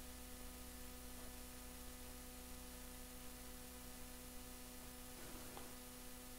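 Faint, steady electrical hum, with a faint brief sound about five and a half seconds in.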